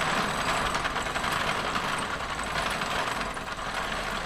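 Arkwright waterframe spinning machine running, a steady dense mechanical clatter from its rollers and spindles as it draws out cotton and twists it into yarn.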